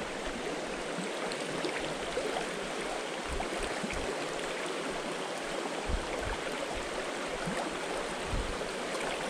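Shallow, clear freestone creek running over rocks: a steady, even rush of flowing water.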